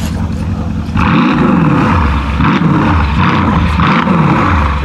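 Brabus 650's 5.5-litre twin-turbo V8 (Mercedes-AMG S63 Convertible) idling, then revved on the spot in about four quick blips from about a second in, each rising and falling in pitch.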